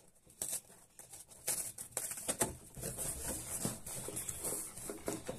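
Hands opening a packed order box: an irregular run of small crackles, clicks and rustles as the box and its packing are pulled open.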